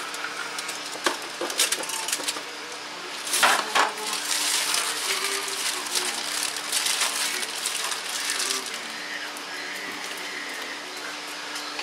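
Kitchen handling sounds: a few light clinks, a louder double clatter about three and a half seconds in, then several seconds of rustling, over a steady low hum.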